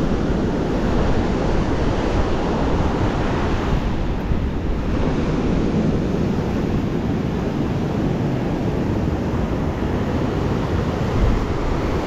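Storm surf breaking and washing up the beach, steady and continuous, with wind on the microphone.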